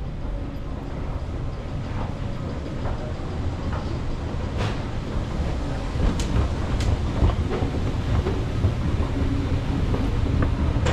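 Low rumble of a subway train moving through an underground station, growing slightly louder, with three sharp clicks around the middle.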